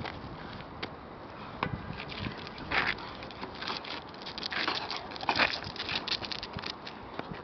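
Paws scuffing and scrabbling on asphalt and a rubber tyre scraping as a Cane Corso tugs at it: many short clicks and scuffs, with louder scrapes about three seconds in and again near five seconds.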